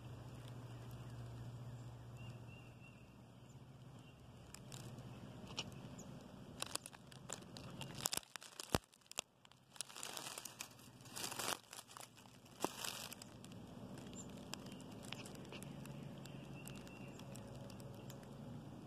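Dry grass and dead leaves rustling and crackling close by, with a flurry of crinkly clicks and rustles in the middle, over a low steady hum.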